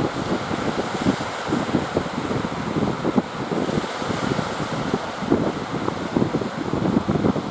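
Wind buffeting the microphone in uneven gusts, over a steady rushing wash of sea surf.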